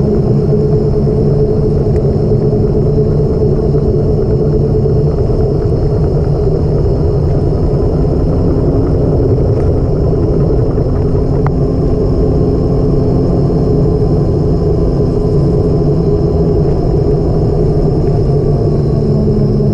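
Motor vehicle running at a steady pace: a continuous engine drone and road rumble that holds its pitch.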